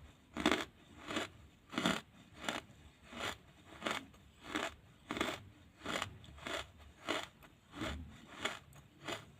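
Wood charcoal being chewed: steady crunching bites, about three every two seconds, each a short gritty crunch.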